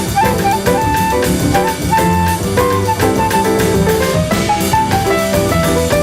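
Recorded band music: horns carrying a melody over a drum kit and a steady bass line, playing continuously.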